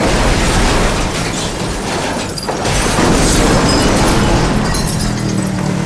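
Ford pickup truck crashing and rolling over: a sudden loud impact, then continuous crashing noise, with a brief lull about two and a half seconds in before another surge.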